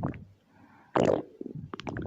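Stomach growling from hunger: a rumble tails off, then after a short pause a new growl starts suddenly about halfway through and runs on with small crackling gurgles.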